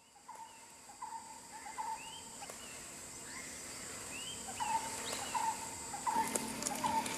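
Birdsong ambience: one bird repeats a short chirp about every three-quarters of a second, with higher, curving calls from other birds in between. The chirping grows louder about four and a half seconds in, over a steady high hiss.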